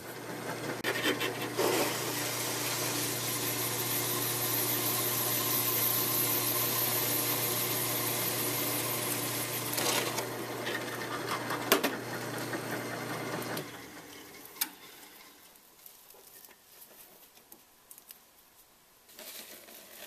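Drill press motor running with a hole saw boring a pulley disc out of a plastic cutting-board sheet: a steady motor hum with loud cutting noise for about eight seconds. Then the cutting stops and the motor shuts off a little after two-thirds of the way through, leaving only a few light clicks.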